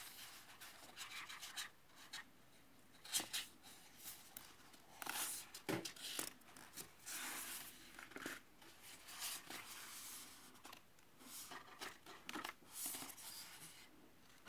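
Book pages being handled and turned by hand: faint, irregular paper rustles and rubs, with a couple of sharper flicks about three and six seconds in.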